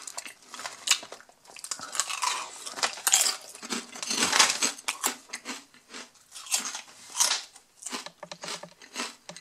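Cauldron-cooked (kettle-style) potato chips being bitten and chewed: super crunchy, with irregular crackling crunches throughout.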